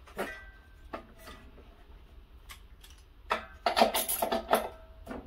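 Metal clinks and rattles of a socket wrench with an extension being fitted onto a lawnmower engine's spark plug. A few light clicks come first, then a busier clatter from about three seconds in.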